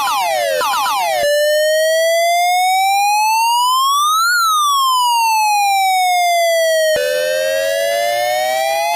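Electronic police siren changing tones: quick repeated falling sweeps, then, about a second in, a slow wail that rises for about three seconds and falls again. About seven seconds in it switches to a rougher slow wail that starts rising once more.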